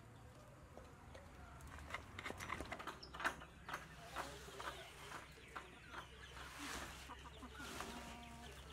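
Chickens clucking in short calls, mostly near the end, over scattered light knocks and clicks.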